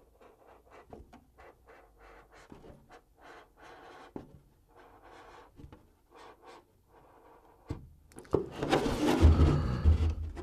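Scoring tool scratching along the cut line of a clear polycarbonate RC truck body in short, faint repeated strokes. Near the end comes a much louder crackling rustle with low thumps as the thin plastic shell is handled and flexed.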